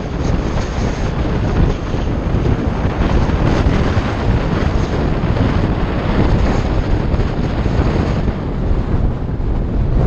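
Wind buffeting the microphone of a moving rider: a loud, steady rush with a deep rumble underneath.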